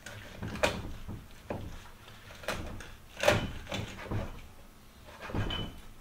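Kitchen knife knocking against a wooden cutting board while cutting a raw rabbit down the middle. It makes a string of irregular knocks, the loudest about three seconds in.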